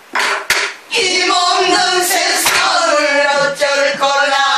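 Several women singing together, accompanied by strokes on sori-buk, the Korean barrel drum used for pansori. There are a couple of sharp drum strokes at the very start, and the singing carries on over the drumming from about a second in.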